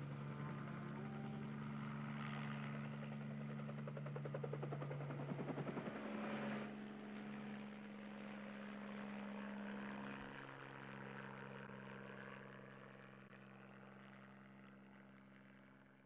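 Background score of sustained low string chords. The held notes change twice and the music fades out near the end.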